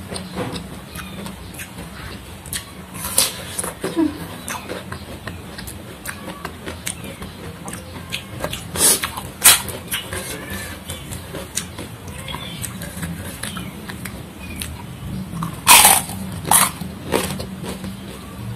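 Close-miked chewing and crunching of crisp raw vegetables and fried crackers, with irregular sharp crunches; the loudest come about 9 and 16 seconds in. A steady low hum runs underneath.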